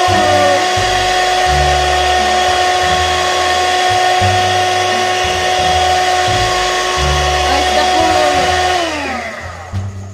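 Electric hand mixer whipping all-purpose cream, a steady motor whine that winds down in pitch and stops about nine seconds in as it is switched off.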